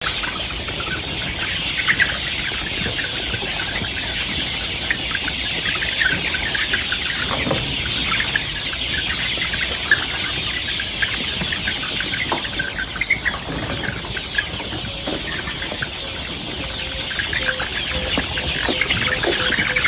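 A flock of Golden Misri chickens, chicks among them, peeping and clucking together in a continuous dense chatter of short calls.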